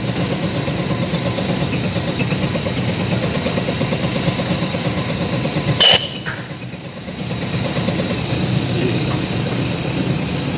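Steady hum and hiss of automated production machinery on an LED assembly line. A short sharp sound comes about six seconds in, and the noise dips for a second or so after it.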